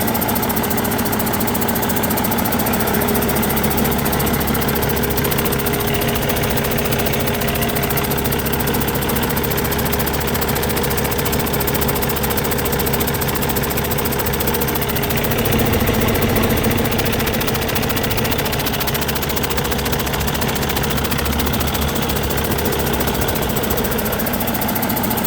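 2013 Cummins ISX15 inline-six diesel engine running steadily on a test run, briefly a little louder about fifteen seconds in.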